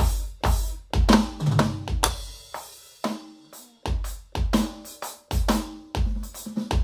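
Electronic drum kit played through its sound module: a groove of kick drum and snare with cymbals, with a short break about halfway through.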